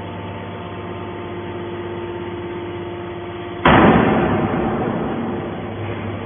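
Can baling machine running with a steady hum, then about three and a half seconds in a sudden loud crash that dies away over about two seconds.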